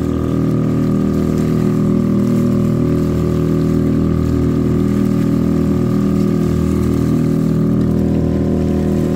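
A motor running at a steady speed, with a faint high whine in it that fades out about eight seconds in, over water noise.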